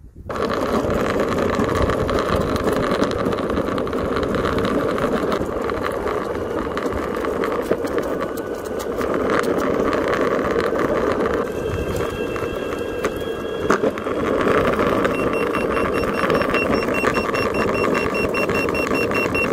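Steady rolling rumble of longboard wheels on pavement, mixed with wind on the moving microphone. About three-quarters of the way through, a high electronic beep starts repeating at an even pace and keeps going.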